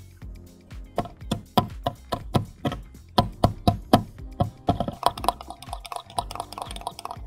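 Tiny wire whisk clicking against a small glass bowl as a creamy mixture is beaten. It starts about a second in as separate taps, a few a second, and turns to rapid, dense clicking past the middle.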